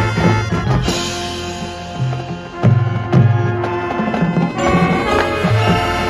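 Marching band playing: the brass section holds full chords over a pulsing bass line and drum-line percussion, with a brief dip and then loud accented hits about three seconds in.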